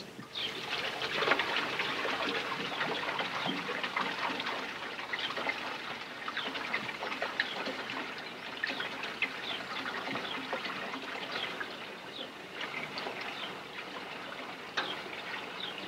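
Something poured from a tipped bucket into a metal container on the back of a tractor: a steady pour full of many small ticks.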